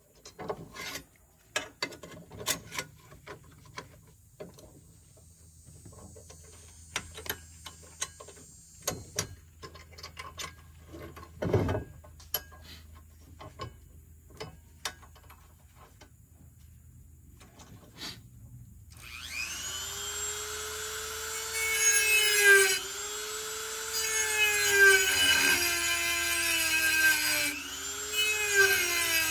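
Clicks and knocks of a metal bracket being handled and clamped in a bench vise. About two-thirds of the way through, a handheld drill starts boring a hole in the bracket: its whine climbs and dips over and over as the trigger is worked and the bit bites into the metal, and this is the loudest sound.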